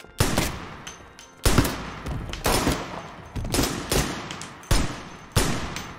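Six handgun shots, about a second apart, each ringing out in a long echo through a large stone church.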